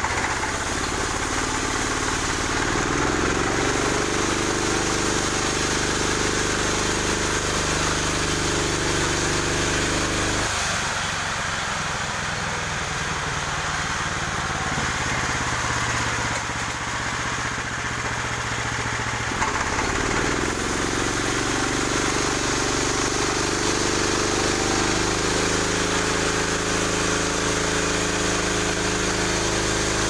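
Portable band sawmill running as its saw head cuts along a log, a steady machine drone. Its tone drops lower and rougher from about 10 to 20 seconds in, then returns.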